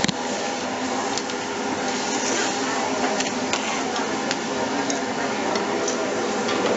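Busy restaurant hubbub: a steady background of diners' chatter with frequent short clinks and taps of metal utensils and dishes around a hibachi griddle.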